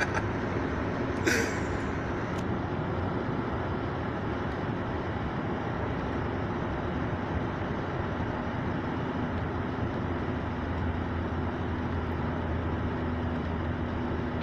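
Steady car cabin noise, the engine and road rumble heard from inside the car, with a short sharp click-hiss about a second in.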